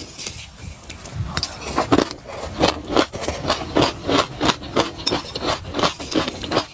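Crunchy eating of raw sesame seeds and grains: sharp, crackly crunches in a steady rhythm of about two a second, starting about a second in, mixed with a metal spoon scraping through the dry seeds in a glass bowl.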